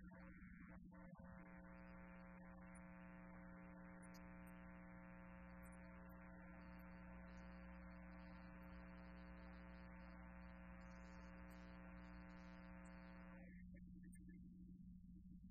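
Faint, steady electrical hum, with a single steady chord held for about twelve seconds. The chord starts about a second in and cuts off near the end.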